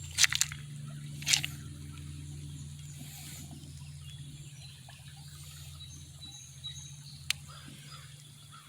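Quiet outdoor ambience under a steady low hum, with faint high bird chirps and a few sharp clicks, one just after the start, one about a second in and one near the end.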